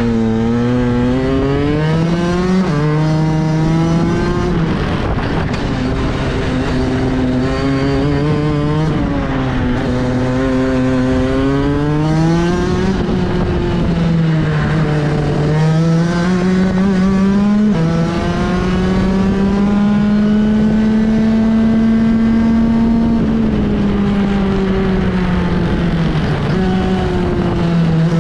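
Racing kart engine running hard throughout a lap, its pitch climbing as it accelerates out of each corner and dropping as it slows for the next, with one long high, steady stretch on a straight about two-thirds of the way through.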